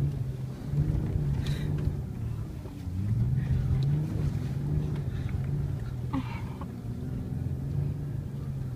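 Toyota Land Cruiser V8 engine heard from inside the cabin while driving over sand dunes. Its pitch rises and falls with the throttle, climbing about three seconds in.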